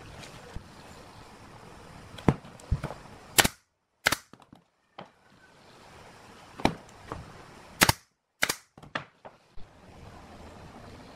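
Small pine blocks knocking sharply on a wooden tabletop and against each other as they are set down and pressed together, about a dozen clicks and knocks in two clusters. The sound drops out to dead silence twice, briefly.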